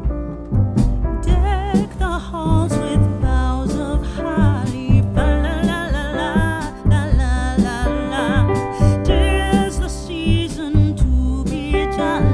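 Background music with a sung vocal line over bass and drums; the singing comes in about a second in.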